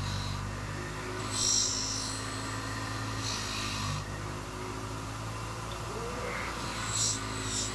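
Air compressor running with a steady low drone. Short high-pitched bursts sound over it about one and a half, three and a half and seven seconds in.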